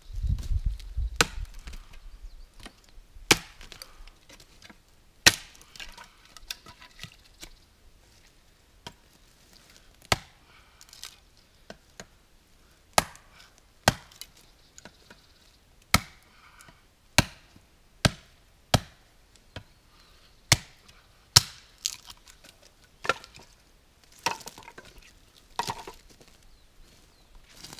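Chopping: a blade striking wood in about fifteen sharp, separate blows, spaced irregularly a second or two apart.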